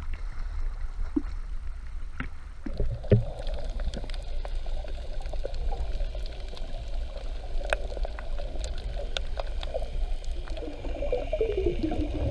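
A boat underway on open water: water rushing and gurgling along the hull over a steady low rumble, with scattered sharp clicks and knocks.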